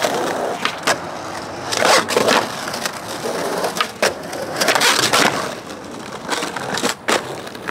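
Skateboard wheels rolling over rough, worn ground with a continuous gritty rumble, broken by several sharp clacks of the board.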